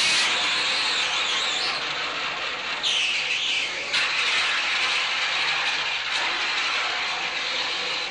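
Sawmill machinery running: a loud, steady high-pitched hiss and whine, changing abruptly in pitch about three and four seconds in.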